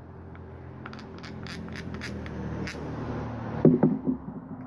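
Hand scraping and rubbing at a rusty metal piece to clean it: a run of short scratchy strokes, then a few heavier knocks near the end, over a steady low hum.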